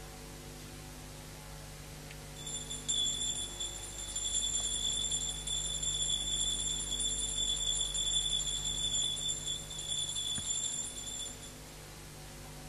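Hand bell rung continuously, a steady bright ringing that starts a couple of seconds in and stops shortly before the end, over a low electrical hum.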